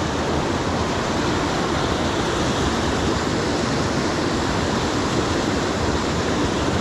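Steady rush of a waterfall, water dropping over boulders into pools below.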